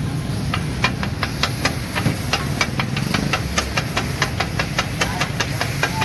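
Metal spatulas clacking rapidly on a flat iron griddle, about four to five sharp clacks a second, as keema is chopped and mixed. Under them runs a steady low rumble and hiss.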